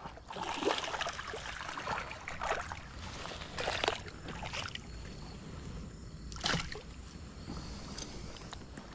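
Water splashing and sloshing at the river's edge as a hooked fish is fought and landed on rod and line, with several sharper splashes, one louder than the rest a little past the middle.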